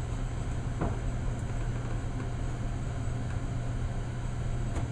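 Steady low hum with an airy background noise, like a ventilation or air-conditioning system running, with one faint click about a second in.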